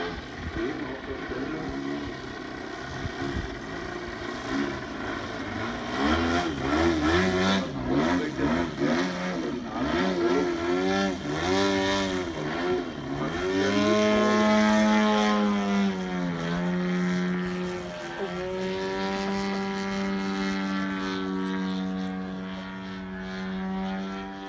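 Engine and propeller of a 2.7 m Pilot RC 330 SV aerobatic model plane in flight, pitch rising and falling with the throttle through the manoeuvres, then held near-steady from about the middle on while the plane hangs nose-up.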